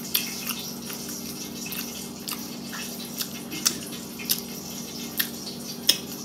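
Wet smacking and sucking clicks of someone eating with her fingers and licking them clean, coming irregularly about every half second, over a steady low background hum.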